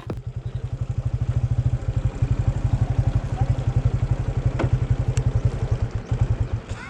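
Motorcycle engine running at a steady putter of roughly ten pulses a second, dying away shortly before the end.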